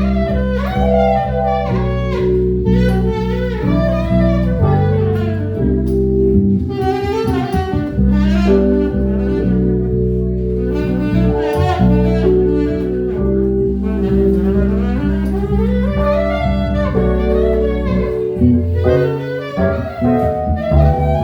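Instrumental jazz-style music from a live jam: a melodic lead line moving over sustained bass notes, with no singing.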